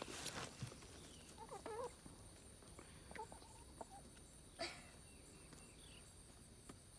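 Faint backyard ambience: chickens clucking softly a few times under a steady high insect trill, with one sharp click about four and a half seconds in.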